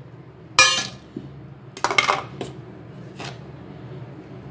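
Stainless steel kitchen utensils clinking against a steel mixer-grinder jar. There is a sharp clink about half a second in, two or three more around two seconds, and a lighter one a little after three seconds.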